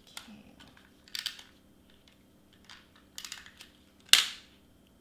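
Double-sided tape runner pressed and dragged across cardstock in several short strokes, the loudest about four seconds in.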